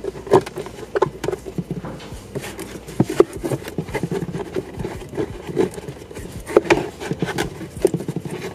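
Irregular taps, clicks and rustles of a cloth-wrapped wiring harness and plastic glove-box trim being handled as the wires are pushed into place.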